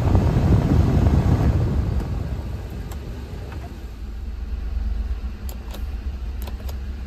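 Cab ventilation blower of a Daihatsu Hijet mini truck blowing air from the dash vents over the steady low hum of its three-cylinder engine idling. The fan noise drops away about two seconds in, leaving the idle, with a few faint clicks near the end.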